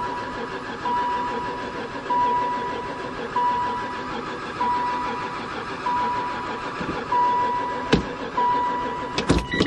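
Starter motor cranking an old van's engine, which does not catch, while a warning chime beeps steadily about once every second and a quarter. A couple of sharp clicks come near the end.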